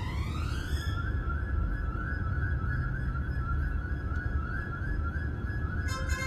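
Car driving on a spiral parking ramp, heard from inside the cabin: a steady low road rumble with a steady high-pitched tone over it.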